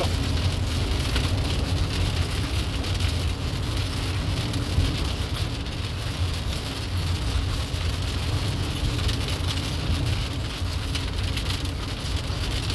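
Rain pattering on a moving vehicle's body and glass, over a steady low road and engine rumble heard from inside the cabin.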